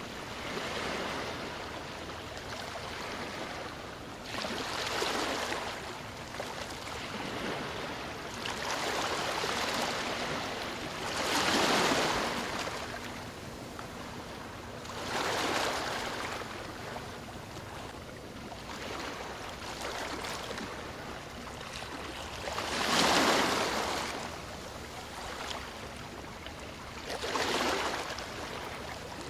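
Ocean surf: waves breaking and washing up the shore, a swell of rushing water every few seconds over a constant wash, the biggest about twelve and twenty-three seconds in.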